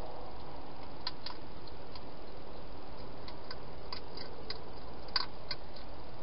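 Hedgehog eating from a bowl inside a plastic feeding box: irregular small clicks and crunches over a steady hiss, the loudest about five seconds in.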